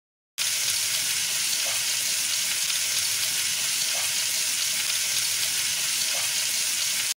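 Lamb neck pieces searing in hot fat in a frying pan with chopped garlic: a steady sizzling hiss that starts suddenly about half a second in.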